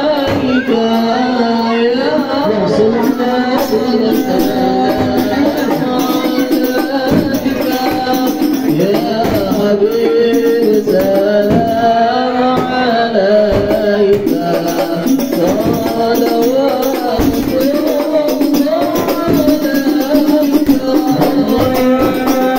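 A sholawat (Islamic devotional praise song) sung into a microphone, with other voices joining in over hand-drum and rattle percussion.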